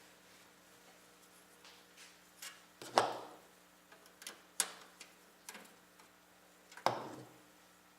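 Small metallic clicks and taps from a screwdriver and loose screws on a metal computer case while screws are being removed. There are about half a dozen sharp, irregular ticks, the loudest about three seconds in and again near seven seconds.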